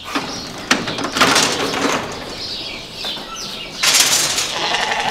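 Metal gates of a sheep weigh crate and handling race sliding and clanking as sheep move through, with short high squeaks in between. The loudest clatter comes about a second in and again near the four-second mark.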